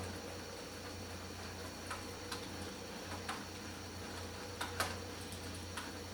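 A handful of sharp, irregular clicks over a steady low hum, the loudest a double click just before five seconds in.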